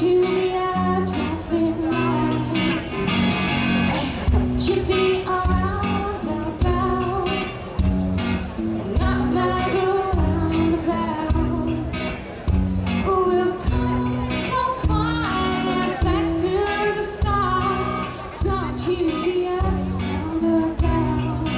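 Live indie-pop band music: a woman singing lead into a microphone over a steady drum beat and bass.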